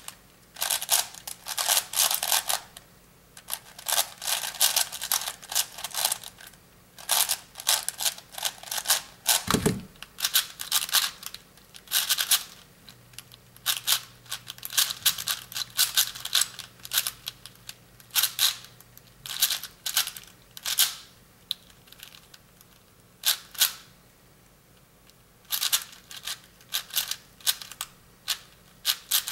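Plastic ShenShou speedcube layers being turned very fast in bursts of rapid clicking and rattling, with short pauses between bursts. A dull thump comes about ten seconds in.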